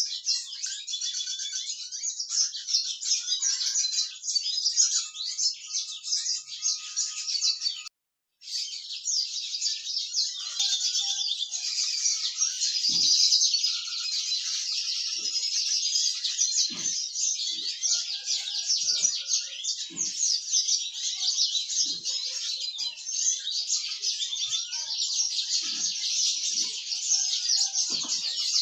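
Small finches singing: a dense, fast, continuous chattering of high chirps and trills. The song breaks off for a moment about 8 seconds in, and faint low taps come now and then in the second half.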